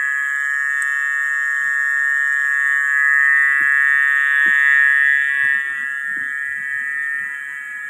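Loud, steady, high-pitched buzzing of night insects in tropical forest, swelling about three seconds in and easing off after about five seconds with a slight drop in pitch.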